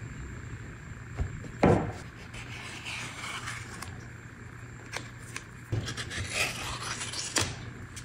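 Thin glued wood strips being handled on a wooden tabletop: a sharp knock a little under two seconds in, then rubbing and scraping as the strips are slid and pressed together, with a few light taps.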